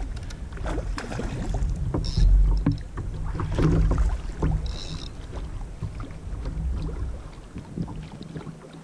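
Water slapping against a plastic kayak hull and wind buffeting an action camera's microphone, with an uneven low rumble and many small knocks and rattles. Two short high-pitched sounds come about two and five seconds in.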